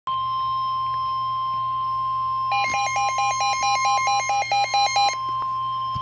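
NOAA weather alert radio sounding the steady 1050 Hz warning alarm tone that comes before a broadcast warning, here a flash flood warning. From about two and a half seconds in, rapid electronic alert beeps, about five a second, sound over the tone for some two and a half seconds.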